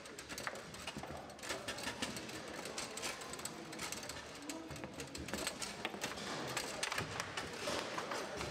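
Foosball being played: the ball and the rods knock and click against the table's players and walls in a rapid, irregular clatter.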